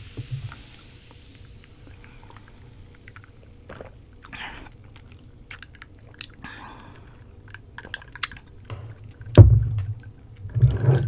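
Sipping an iced grape cooler from a glass mug, with small scattered clicks of ice against the glass. Two heavy low thumps come near the end, the first the loudest.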